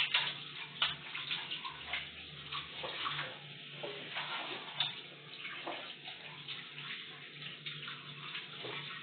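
Kitchen tap running into a metal sink, the water splashing unevenly as hands are rubbed and rinsed under the stream.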